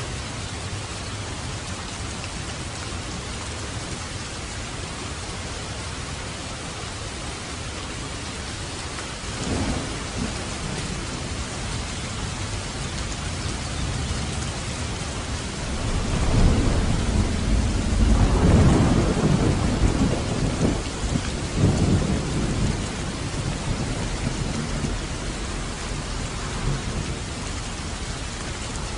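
Steady rain falling, with a short rumble of thunder about nine seconds in and a longer, louder roll of thunder from about the middle that builds, peaks and dies away over several seconds.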